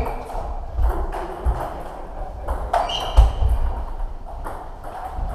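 Table tennis balls clicking off bats and tables, a handful of irregular sharp clicks from this rally and neighbouring tables. The loudest click comes about three seconds in.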